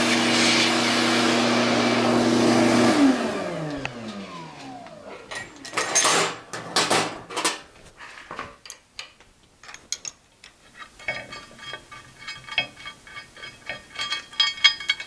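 Shop vacuum running with a steady hum and hiss while cleaning metal chips off a milling machine table. About three seconds in it is switched off and its motor winds down with a falling whine. Then come scattered knocks and light metallic clinks as a steel plate is handled on the mill's rotary table.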